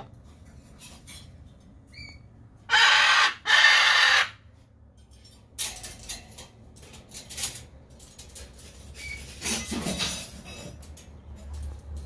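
Parrot screeching: two loud, harsh screams close together about three seconds in, followed by a few shorter, fainter squawks.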